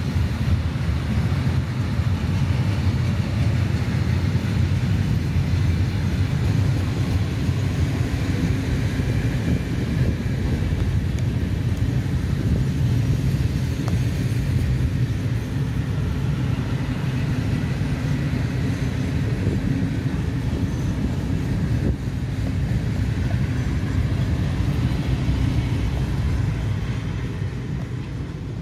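Freight train of cement hopper wagons rolling past: a steady rumble of wheels on the rails, fading near the end as the last wagons go by.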